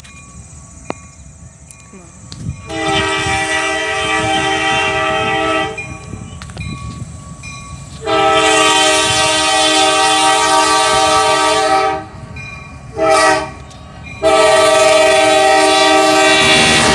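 Locomotive multi-chime air horn sounding a chord of several notes in two long blasts, one short blast and a final long blast: the long-long-short-long grade-crossing signal. A low train rumble underlies it, heard alone for the first few seconds.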